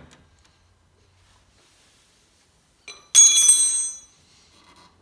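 A metal part struck once about three seconds in, ringing like a bell for nearly a second. It fits the quarter midget's rear sprocket being tapped along the axle to align it with the chain.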